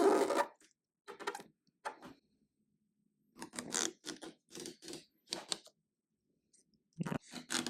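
Short crackling scrapes in about a dozen quick bursts with gaps between: the backing film being peeled off 3M double-sided tape on a spoiler.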